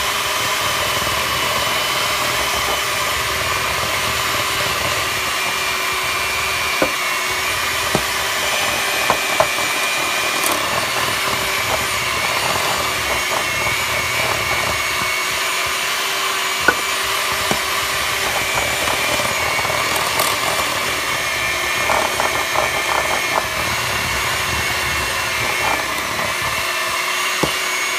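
Electric hand mixer running steadily, its beaters working stiff, crumbly cookie dough as flour is mixed in, with a few sharp clicks scattered through.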